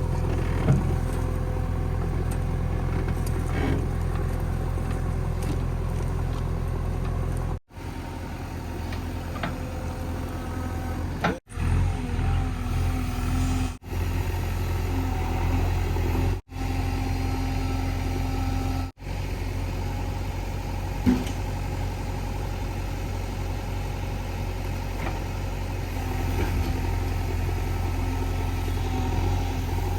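Diesel engine of a JCB 3DX backhoe loader running steadily, with the sound dropping out abruptly and briefly about five times.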